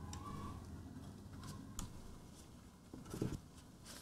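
Faint handling sounds of a twin-lens reflex camera's folding metal viewfinder hood: a few light clicks, then a short rubbing knock just after three seconds in.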